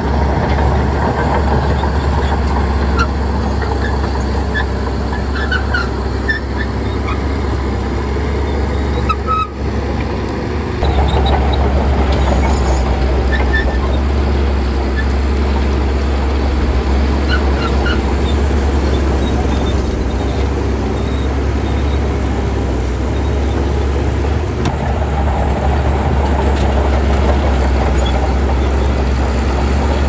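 Heavy diesel construction machinery running steadily under load, with a strong low rumble. The engine note eases for about a second near ten seconds in, then picks up again.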